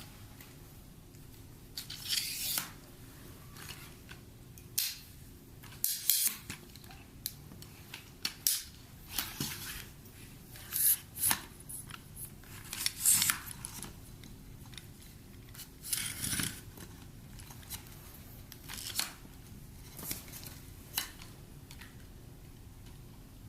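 Packaging being handled during an unboxing: about a dozen short, crisp, irregular snipping and rustling noises over a faint steady hum.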